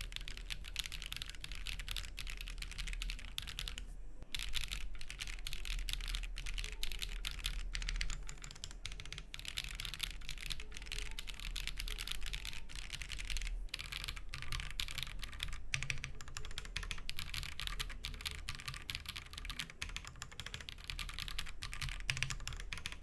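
Continuous typing on a Monsgeek M1 75% aluminium mechanical keyboard: a rapid, steady stream of keystroke clacks, briefly broken about four seconds in and again near the middle.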